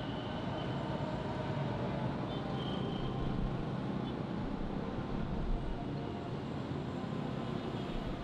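Dense city street traffic: a steady rumble of engines and tyres, with a few faint short high tones.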